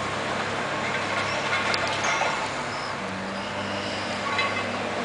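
Komatsu hydraulic excavator's diesel engine running steadily, with a few light knocks from the rubble it is working. Its note shifts about three seconds in.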